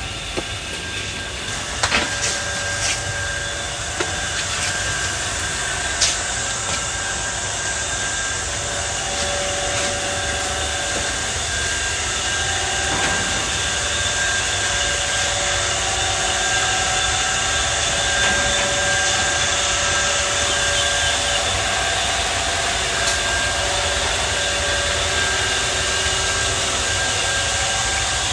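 A motor running steadily, with a few sharp knocks in the first several seconds.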